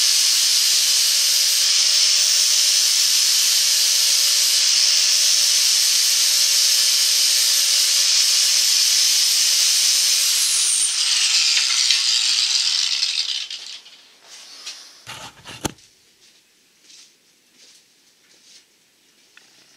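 Angle grinder running at a steady high whine, then switched off about ten seconds in and spinning down over a few seconds. A couple of sharp knocks follow, then faint handling.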